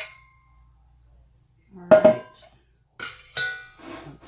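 Small metal pot and utensil clinking and clanking: a ringing clink fades out at the start, a loud clank rings about two seconds in, and another clink follows about a second later.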